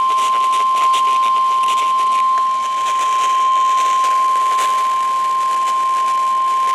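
NOAA Weather Radio 1050 Hz warning alarm tone: a single steady, loud, unbroken tone over faint radio static hiss. It signals that a warning-level alert is about to be read, here a severe thunderstorm warning.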